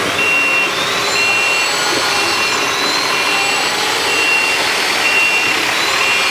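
Heavy machinery running steadily under a warning alarm that beeps about once a second, each beep lasting about half a second.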